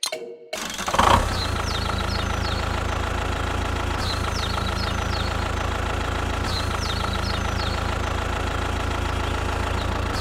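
A small engine starts up about half a second in and then runs steadily at idle, with a deep, even drone. Short high chirps recur faintly over it every few seconds.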